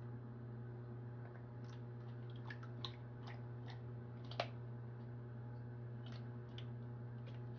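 Scattered sharp clicks and ticks over a steady low hum, coming mostly in the first half, with the loudest click a little past the middle.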